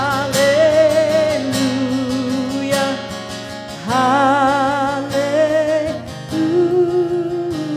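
A woman singing a slow worship song, holding long notes with vibrato on a drawn-out 'hallelujah', accompanied by strummed acoustic guitar.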